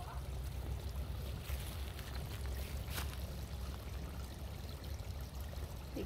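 Small woodland stream trickling steadily over rocks and leaves, over a steady low rumble, with a single short click about halfway through.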